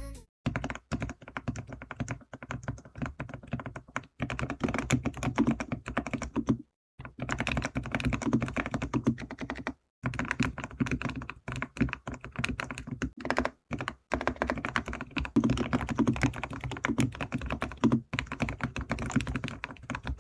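Fast, continuous typing on a TNT TX108 low-noise mechanical keyboard with Cherry-blossom silent switches: a dense run of soft, muted keystroke clicks, broken by a few short pauses.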